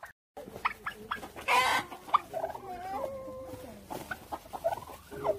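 Turkeys and chickens calling: many short clucks and chirps, a few longer wavering calls, and one loud rough burst about a second and a half in.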